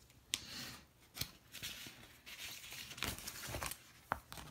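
Sheets of paper planner stickers rustling and crinkling as they are handled, in short bursts with a few sharp ticks in between.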